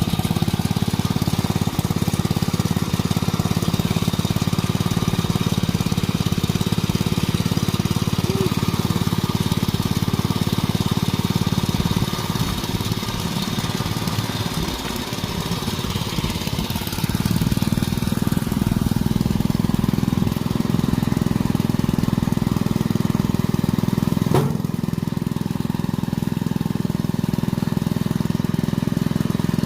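Small engine running steadily, easing off for a few seconds about halfway through and then picking up again.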